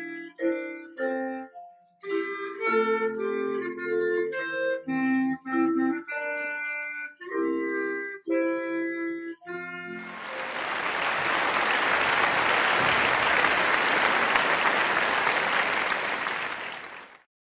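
A clarinet plays a melody over a piano accompaniment, finishing about ten seconds in. Applause follows for about seven seconds and cuts off suddenly.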